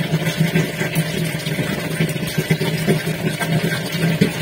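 Aquarium air pump running with a steady low buzz.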